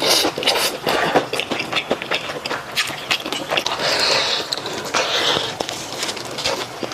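Close-miked eating of a sauce-coated fried chicken leg: biting and wet, sticky chewing with many small mouth clicks and lip smacks. Two breathier sucking sounds come about four and five seconds in, as sauce is sucked from the fingers.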